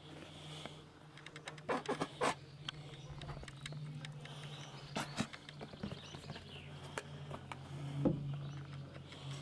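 A few sharp knocks and clicks from handling a plastic bucket and a squeeze bottle of green liquid, over a steady low hum.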